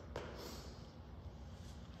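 Two kettlebells picked up off a gym floor, giving one faint click just after the start, over a low steady room hum.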